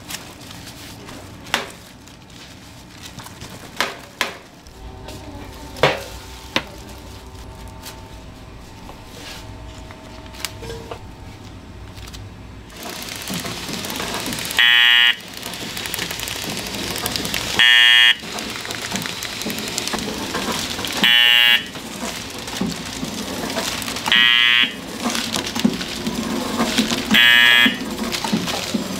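Scattered light clicks and taps as rice cakes are handled on a plastic-lined metal tray. About halfway through, a flow-wrap packaging machine starts running with a steady noise, and a loud buzzer beeps five times, each beep about half a second long, roughly every three seconds.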